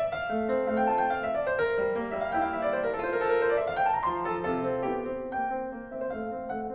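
Background piano music: a flowing line of notes that climbs and falls back near the middle.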